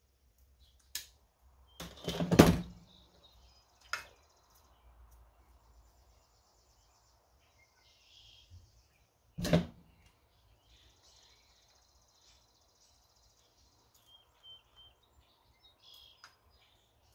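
Small hand tools and wire being handled while butt connectors are fitted onto wire ends: scattered clicks and knocks, the loudest a short crunch about two seconds in and a sharp click about halfway through.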